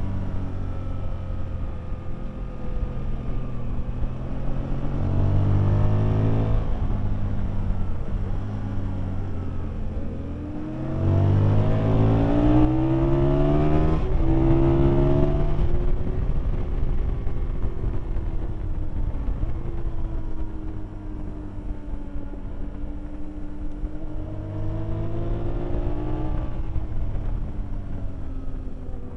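Aprilia Tuono's V-twin engine heard from on board at track speed, accelerating hard several times with the pitch climbing and dropping at each upshift, then easing off in between. Wind noise rushes over the microphone.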